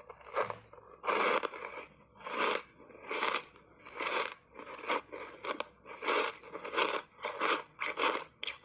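Ice coated in matcha green tea powder being bitten and chewed: about a dozen crisp crunches, coming faster toward the end.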